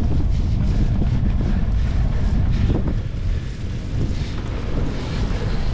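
Wind buffeting the microphone of a handlebar-mounted camera on a cyclo-cross bike being ridden, with a heavy low rumble and scattered short knocks and rattles; it eases a little about three seconds in.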